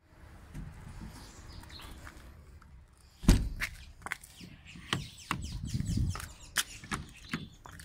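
A pickup canopy and the plastic pet carriers inside it being handled: one heavy thump about three seconds in, then a run of lighter knocks and clicks.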